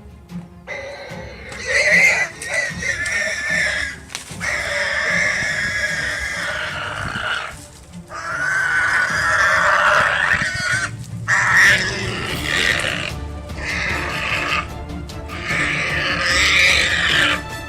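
An animal calling loudly, with four or five long calls of one to three seconds each and short breaks between them, over background music.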